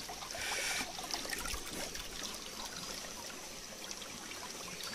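Shallow stream water trickling over rocks, with a few faint splashes and knocks from hands working in the water.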